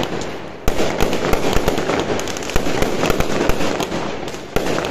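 Aerial fireworks going off overhead in a dense barrage of rapid bangs and crackling. The barrage eases briefly at the start, then comes back with a sudden bang less than a second in, and dips again for a moment near the end.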